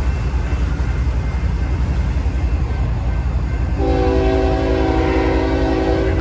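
Locomotive air horn sounding one long chord of several notes, starting nearly four seconds in and held for a little over two seconds before it cuts off. A steady low rumble runs underneath.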